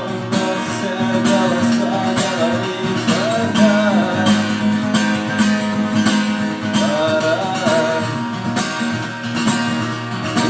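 Acoustic guitar strumming the instrumental part of a song, with a wavering melody line above the chords.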